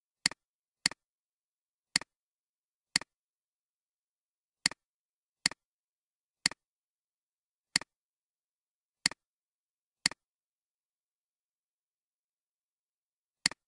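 Computer mouse clicks: about eleven sharp clicks at uneven intervals, each a quick pair of ticks from the button being pressed and released, with dead silence between them.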